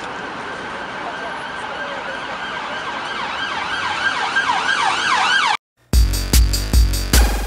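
An emergency vehicle siren on a fast yelp, sweeping quickly up and down in pitch and growing louder over steady street noise. It cuts off abruptly near the end, and an electronic music track with a drum-machine beat begins.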